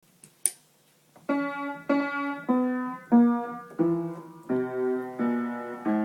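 Piano notes struck one at a time at a slow, even pace, about one every two-thirds of a second, each ringing and fading, with some later strokes sounding two notes together. A sharp click comes about half a second in, before the first note.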